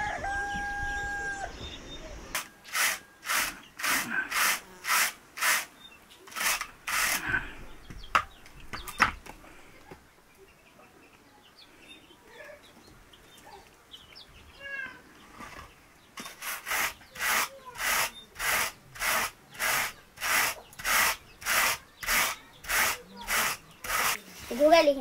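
Raw wool being hand-carded between wire-toothed wooden carders: short scratchy strokes about two a second, in two runs with a quieter pause between them.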